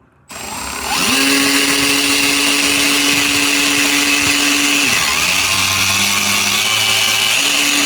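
Milwaukee cordless electric extended-reach ratchet running at full speed with its head in diesel fuel, the motor whining steadily over the churn and splash of the fuel. The whine drops lower for about two seconds past the middle, then comes back up.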